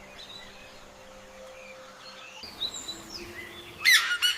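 Rainforest ambience with faint, scattered bird chirps, then near the end a loud, sudden burst of oropendola calls with rich sweeping notes.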